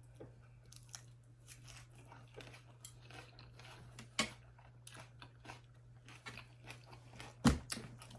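Close-miked eating sounds: chewing and crunching with many small wet clicks of the mouth. There is a sharper knock about four seconds in and a louder one near the end. A steady low hum sits underneath.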